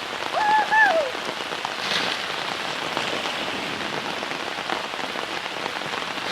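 Hard rain falling steadily. About half a second in, a short whooping shout that falls away at its end.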